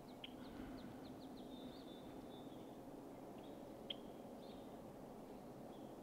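Faint red-winged blackbird calls: a quick run of short high notes running into a buzzy trill, then a few sharp single notes later on, over steady low background noise.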